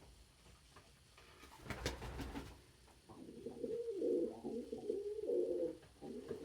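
Domestic pigeon cooing repeatedly in low, wavering calls from about three seconds in, after a brief rustle near the two-second mark.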